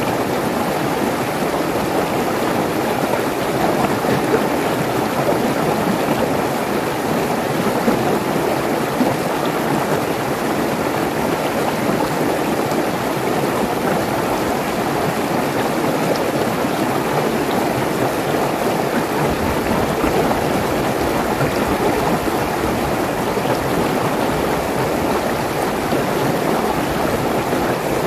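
Mountain stream rushing and splashing over rocks in small cascades: a steady, even water noise with no pauses.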